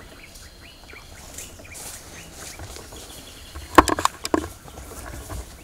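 Faint bird chirps over a quiet forest background, then a short burst of crackling and snapping about four seconds in as people push through dense undergrowth, stepping on twigs and brushing leaves.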